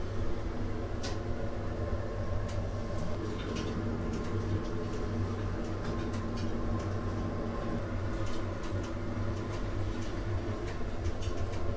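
A steady low hum, even in level, with faint irregular ticks over it.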